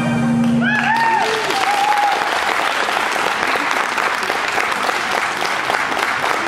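The routine's music stops right at the start, and a large audience breaks into applause, with a few rising-and-falling cheers about a second in.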